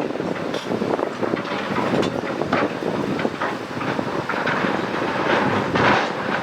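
Excavator working, with a steady run of irregular clanks and rattles of metal and rock.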